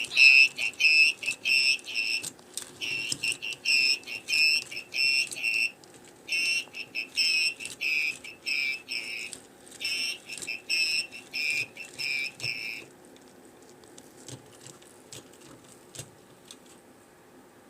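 Furby 2012 toy beeping electronically through its speaker: four runs of rapid, high-pitched beeps, about three a second with short pauses between runs, then a few faint clicks near the end.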